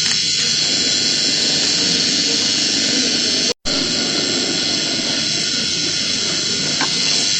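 Steady, loud rushing static noise, hissy and strongest in the upper range, used as a looping noise sound effect; it cuts out for a split second about halfway through, then resumes unchanged.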